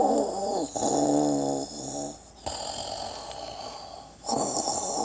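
Snoring from a sleeping Santa figure: a pitched, rattling snore in the first two seconds, then a quieter wheezing breath out, and the next snore starting about four seconds in.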